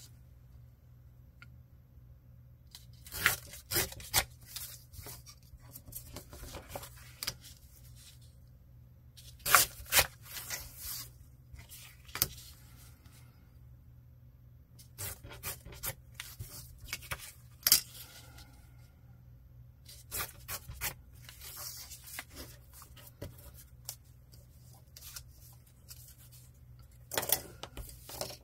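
Paper being torn by hand in a series of short tears, with paper handling and rustling between them; the loudest tear comes about ten seconds in.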